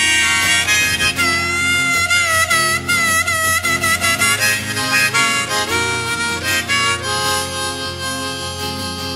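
Harmonica playing a melody with wavering vibrato over acoustic guitar, in the instrumental passage of a Korean folk ballad. It gets a little softer in the second half.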